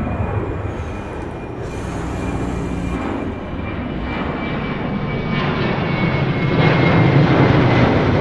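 Airport field recording of an aircraft's engines running: a steady rumble and rush with a thin high whine that sinks slowly, growing louder over the last few seconds.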